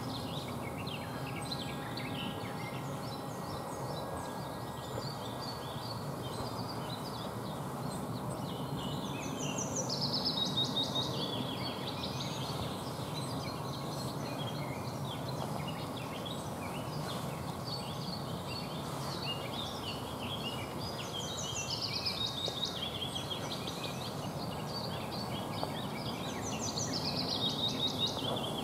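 Wild songbirds singing in the surrounding woods, a longer bright song phrase coming several times among scattered small chirps, over a steady background hiss.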